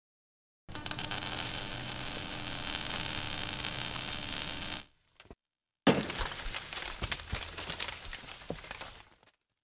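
Logo-reveal sound effects: about four seconds of loud crackling hiss, then after a short break a sudden hit whose crackling tail fades away over about three seconds.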